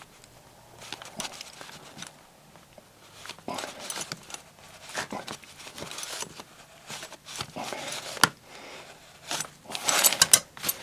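A leather belt wrapped around a brass tap, gripped and twisted by hand, giving irregular scrapes, creaks and clicks, with a sharp click about eight seconds in and several louder clicks near the end. The belt slips and twists rather than turning the seized part.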